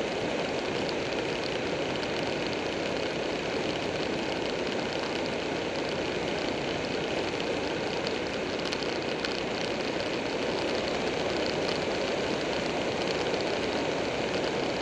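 Buell 1125R motorcycle with its 1125 cc V-twin cruising at steady speed, heard from a camera mounted on the bike: steady wind noise over the microphone with the engine's drone beneath, no change in engine speed.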